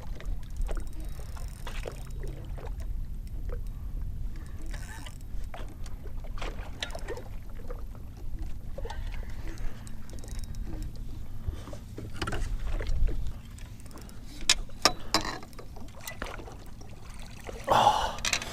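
Fishing from a small boat while a bass is played and landed: a steady low rumble of wind and water against the hull, with scattered sharp clicks and knocks, most of them in the second half.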